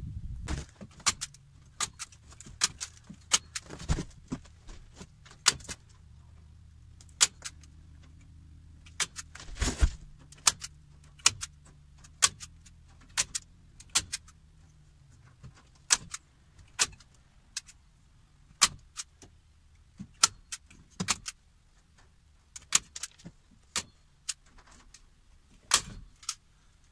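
Hand staple gun driving staples into a wooden door frame to fasten chicken wire: a long series of sharp snapping clicks at irregular intervals, some in quick pairs.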